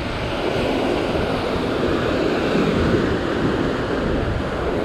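Ocean surf washing and breaking over a rock platform, a steady rushing noise, with wind on the microphone.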